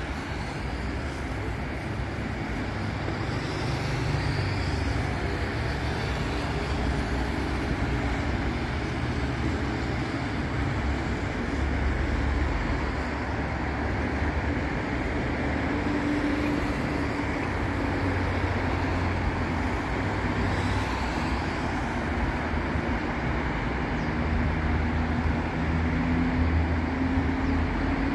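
Steady city avenue traffic: cars, buses and trucks passing, a constant tyre and engine rumble with individual engines rising and falling in pitch now and then as they speed up.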